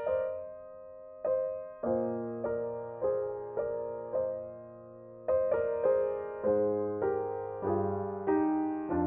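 Slow solo piano music, notes and chords struck about twice a second and left to ring, with brief pauses about a second in and around four seconds in.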